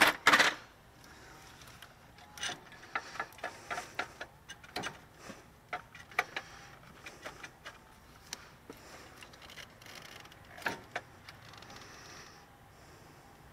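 Scattered light metal-on-metal clicks and taps as a pry bar works at the alternator's mounting tab, trying to press it back. A louder clatter of metal comes right at the start, and there is another sharper click near the end.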